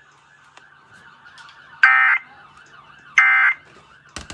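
Two short, loud bursts of Emergency Alert System end-of-message data tones (the SAME digital code sent over broadcast radio) about a second apart, marking the end of the tornado warning. A sharp click comes just before the end.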